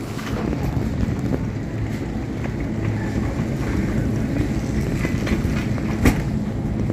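Wire shopping trolley rolling along a supermarket floor: a steady low rumble from its wheels with small rattles and clicks, and one sharp knock about six seconds in.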